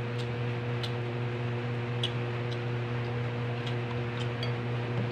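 A steady low electric hum, like a fan motor, with several faint short clicks of a spoon against dishes and of eating.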